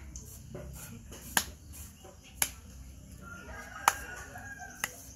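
Four sharp, separate hand claps about a second apart. A rooster crows faintly in the background about three seconds in.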